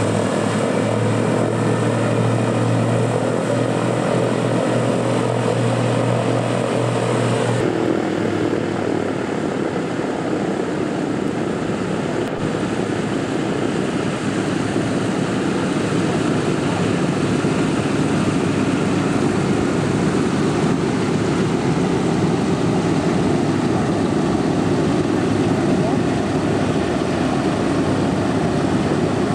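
Radial piston engines of a WWII bomber running on the ground, a steady propeller drone. About eight seconds in the sound cuts to a Boeing B-17 Flying Fortress's four radial engines running, rougher and noisier.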